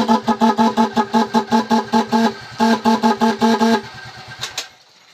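Pair of snail-type electric motorcycle horns sounding in short, rapid blasts, about five a second, in two runs with a brief break, stopping about four seconds in. The horns are being adjusted: they sound loud and shrill but not full, the sign of a defective, out-of-tune horn.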